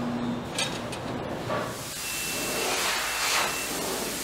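Robotic paint spray gun hissing as it sprays a coat onto an aircraft wing, the hiss coming in about two seconds in and swelling and easing. Before it there is a quieter hum with a couple of faint clicks.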